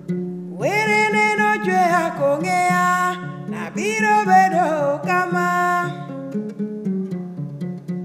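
Live music: a plucked string instrument repeats a low, even run of notes, and a voice sings two long phrases over it, sliding up into each note and wavering.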